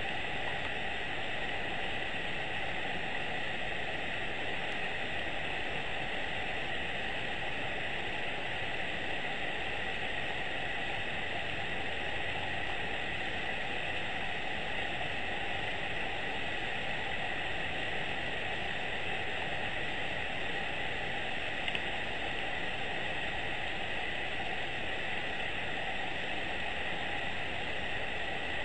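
Steady, even hiss with a faint high hum in it that does not change, and one brief tick about three-quarters of the way through.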